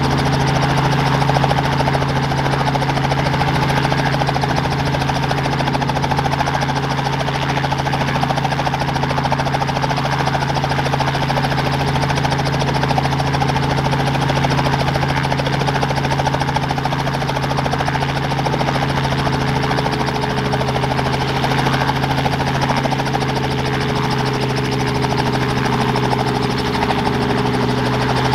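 Robinson R44 Clipper II helicopter running on the ground before take-off, its Lycoming IO-540 six-cylinder engine and main rotor making a steady hum with a slow pulsing low end. A faint higher tone joins about two-thirds of the way through.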